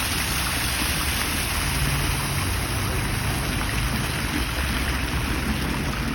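Fountain water splashing steadily into its basin, with a low hum underneath.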